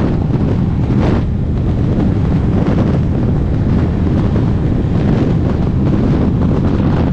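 Heavy wind rushing over the microphone of a Honda H'ness CB350 motorcycle running at high highway speed, with the bike's engine a steady drone underneath. The wind noise flares briefly about a second in.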